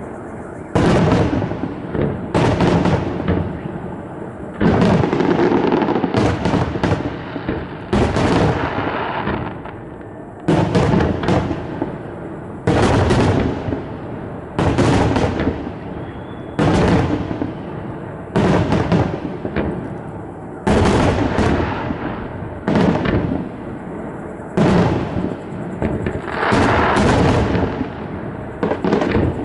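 Fireworks display: aerial shells bursting one after another, a loud bang roughly every two seconds, each fading off over a second or so before the next.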